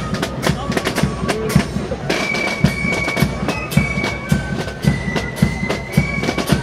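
Background music with a steady drum beat under a melody of long held high notes that step from one pitch to the next.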